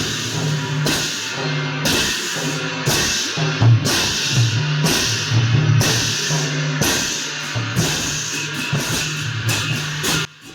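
Music with drums and cymbals, strokes falling about once a second over a steady low tone. It cuts off abruptly just before the end.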